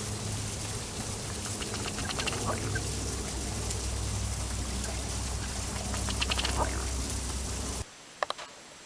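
Male ruddy duck displaying on the water: two runs of quick ticking, about two seconds in and again about six seconds in, over a steady low background hum. Near the end the sound drops to a quiet room with a couple of faint clicks.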